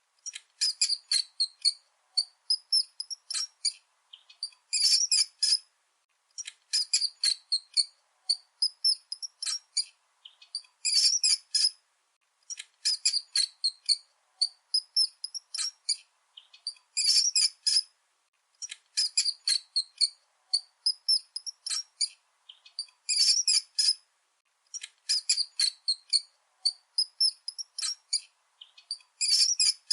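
Mice squeaking: rapid, high-pitched squeaks in short clusters, the same sequence repeating about every six seconds as a loop.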